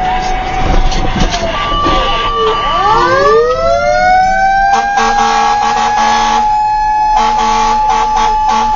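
Fire tanker's siren wailing, heard from inside the cab. It sweeps down and back up about three seconds in, holds a steady high pitch, then falls and rises again near the end.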